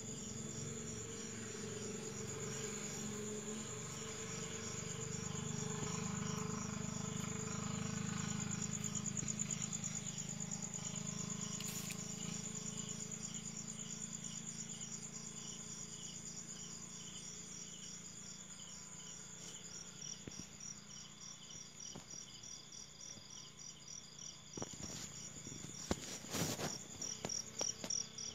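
Night chorus of crickets and cicadas trilling steadily, one high continuous trill with rhythmic chirps repeating beneath it. A low hum swells in the first half and fades, and a few sharp clicks come near the end.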